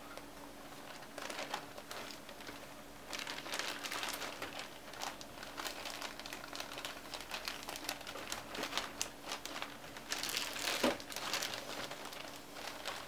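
Clear plastic wrap crinkling and crackling as it is pulled off and handled around plastic model-kit parts in a cardboard box. The crackles are irregular, getting busier after a few seconds and loudest a little before the end.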